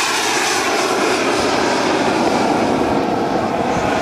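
Jet engine noise of a large radio-controlled model de Havilland Comet 4 airliner climbing away after a low pass: a loud, steady rushing whine whose highest part fades as it recedes.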